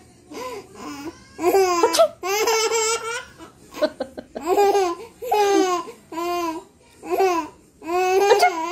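Baby laughing in repeated high-pitched bursts, about seven of them, with short pauses in between.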